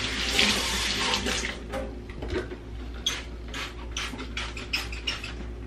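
Water running from a kitchen tap into a stainless-steel sink for a second or two, then dropping away, followed by a string of short, sharp hissing squirts as a trigger spray bottle of cleaner is sprayed into the sink.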